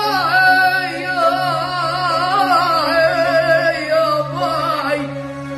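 A boy singing a long, ornamented Arabic vocal line with wide vibrato, in a powerful, full voice, with a violin accompanying. The line sinks in pitch near the end.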